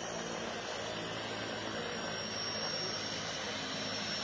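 Tara Air DHC-6 Twin Otter's two turboprop engines running steadily as the plane rolls along the runway, with a thin high turbine whine over the propeller hum.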